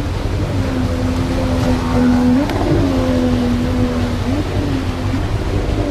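Outboard motor with a water-jet unit driving an inflatable PVC boat through rapids, over the rush of white water. Its engine holds a steady note that rises and falls a couple of times.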